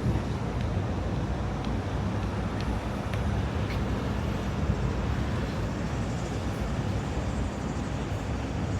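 Steady hum of road traffic on a city street, with a few faint clicks in the first half.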